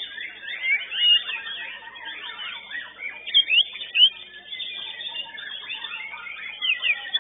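White-rumped shamas (murai batu) singing at once in competition: a dense tangle of rapid, overlapping whistles and chattering phrases, with a few loud, sharp notes about one second in and again between three and four seconds in.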